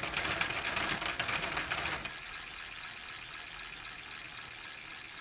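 Logo intro sound effect: about two seconds of loud, dense crackling clatter, then a quieter steady hiss.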